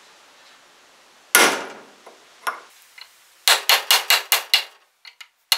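Hammer blows on a metal pipe driving a new ball bearing onto a pool pump motor's armature shaft, the pipe seated on the bearing's inner race. One ringing strike about a second in, two light taps, then a quick run of about six blows near the end.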